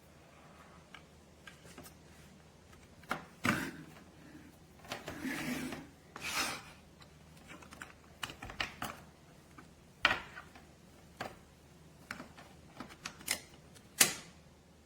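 Irregular plastic clicks and knocks from a handheld network cable tester and its RJ45 plugs being handled, with a brief rustle partway through. The loudest clicks come about 3.5 s, 10 s and 14 s in.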